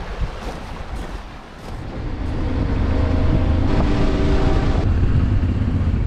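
Motorcycle running on the road with wind rushing over the microphone, quieter at first and louder from about two seconds in.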